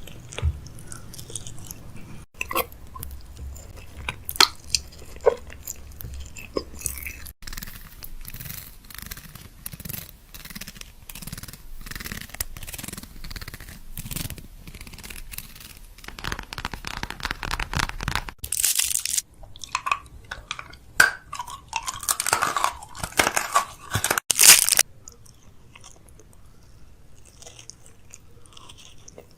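Close-up crunching and chewing of crisp snacks, with many sharp cracks and bites coming in short bursts across several short clips.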